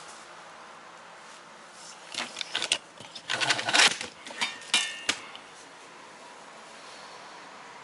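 A quick run of metal clinks and rattles as tools and bolts are handled on the aerator's steel tray, starting about two seconds in, with a short metallic ring just before it stops about five seconds in.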